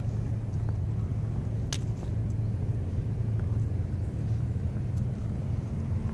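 Low, steady engine rumble with a humming note, and a single sharp click a little under two seconds in.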